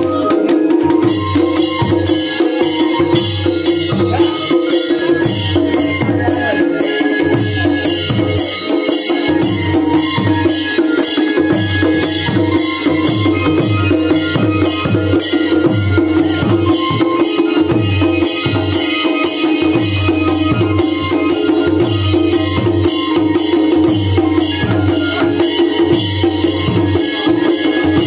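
Live folk band: dhol drums beating a steady, fast rhythm with deep strokes, over a continuous held tone from a keyboard instrument, with bright metallic jingling on top.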